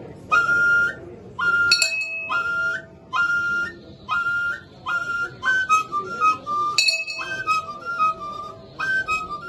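A flute playing short phrases: a quick rising two-note figure repeated about once a second, then runs of falling notes in the second half.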